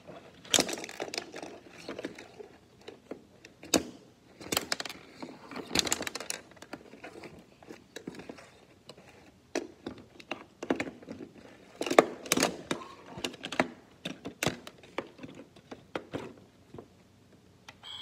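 Irregular plastic clicks, taps and knocks of Playmobil hockey figures and a puck being moved by hand on a plastic tabletop rink.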